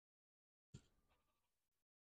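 Near silence, broken about three quarters of a second in by one faint, short tap that fades quickly.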